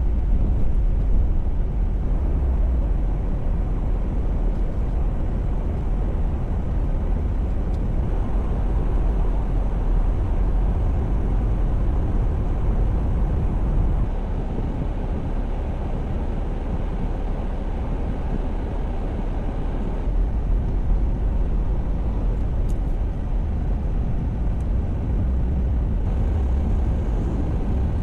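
Steady low rumble of a car driving, road and engine noise with no sudden events.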